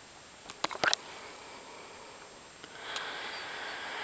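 A few quick, sharp clicks just before a second in, then a person sniffing in through the nose for over a second near the end.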